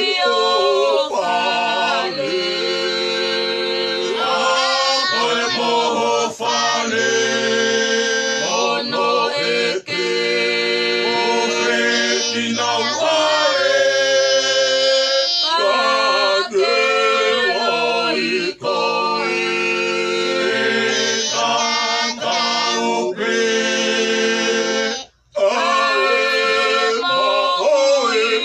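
A mixed group of men, women and children singing together unaccompanied, in long held phrases, with a short break between phrases near the end.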